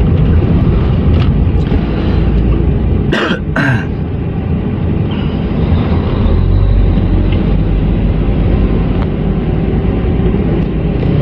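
Steady road and engine rumble of a moving car, heard from inside the cabin. About three seconds in, two short sharp sounds stand out above it.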